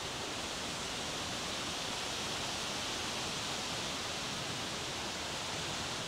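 Steady, even rushing hiss of outdoor woodland ambience, with no distinct events; it falls away at the very end.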